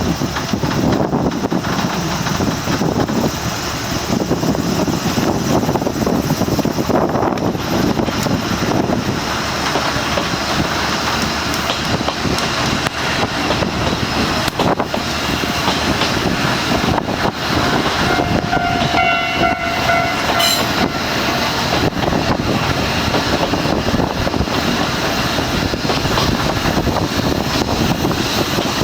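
Electric-bell level-crossing signal ringing continuously while a Kominato Railway diesel train passes over the crossing, with a short horn blast about two-thirds of the way through.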